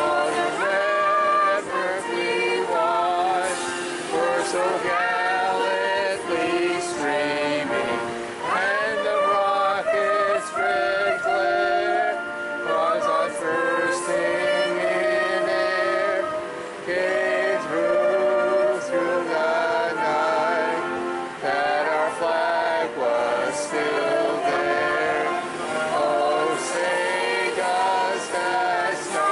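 Choral music: men's and women's voices singing together with accompaniment, with long held notes.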